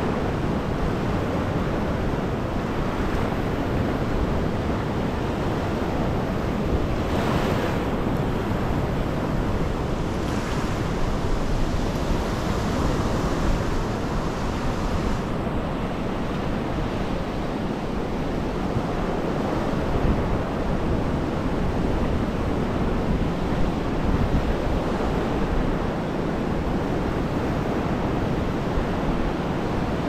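Sea surf breaking and washing up the beach in a steady rush, swelling to a louder hiss a few times, with wind rumbling on the microphone.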